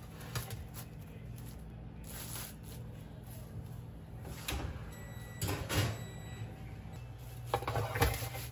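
Metal baking pans being handled and set down on a kitchen counter: scattered knocks and clatters, the loudest near the end, over a steady low hum.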